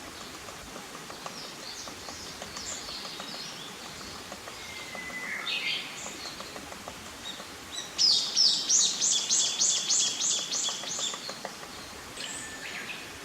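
Wild birds calling and chirping, with a loud run of about nine quick, bright repeated notes about two-thirds of the way in. Faint light ticks sound throughout.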